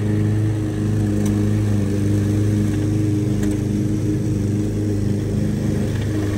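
2016 smart fortwo's rear-mounted three-cylinder engine idling steadily, its pitch holding even.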